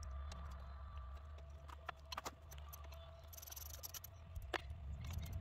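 A wrench and metal fittings clinking at a minivan's front brake caliper as a brake hose is worked on: a few sharp metal clicks about two seconds in and another near the end, over a steady low hum.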